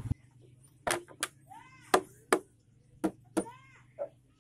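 Sharp knocks of a hand tool striking timber: about eight blows, coming in quick pairs roughly a second apart.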